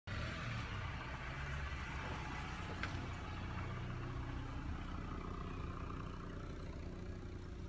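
Car engine idling steadily, a low even hum, with one short click about three seconds in.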